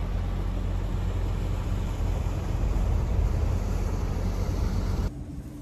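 A boat under way on its outboard motor: a steady low engine rumble under a rushing wash of wind and water noise, which drops away abruptly near the end.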